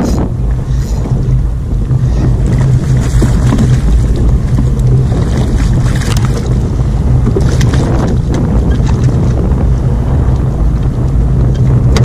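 Wind buffeting an action camera's microphone on a kayak, a loud steady rumble, with a few faint brief rustles.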